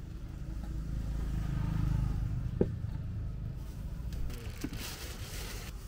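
Low rumble of a vehicle that swells and then fades, with a sharp click about two and a half seconds in. Near the end, clear plastic bags of basil leaves crinkle as they are handled.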